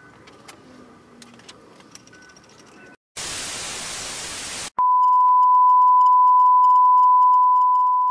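A few faint clicks, then about three seconds in a burst of TV-style white-noise static that cuts off abruptly into a loud, steady single-pitch test-tone beep.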